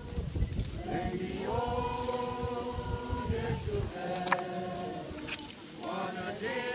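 Singing voices holding long, drawn-out notes, as in a hymn sung at a graveside. A low rumble runs under the first half, and two sharp clicks come a little past the middle, the second with a short jingle.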